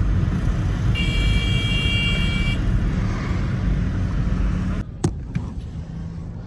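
Car cabin noise while driving: a steady low road and engine rumble, with a car horn sounding for about a second and a half about a second in. Near the end a click is followed by a much quieter low hum.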